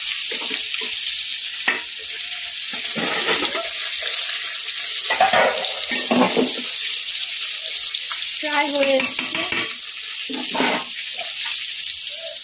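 Fish pieces sizzling in hot oil in a steady hiss, while a metal ladle stirs boiling rice in an aluminium pot.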